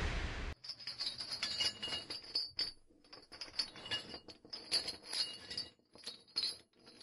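The tail of an explosion boom dies away in the first half second. Then come faint, scattered light clinks and tinkles, irregular and sparse.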